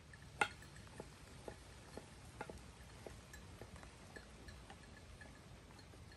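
Faint, light clicks or clinks, a sharper one about half a second in, then a lighter one about twice a second.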